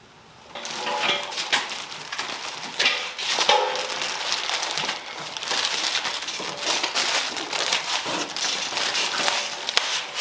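Crinkling and rustling of packaging, with small metallic clinks and knocks as parts are handled. It starts about half a second in and goes on irregularly.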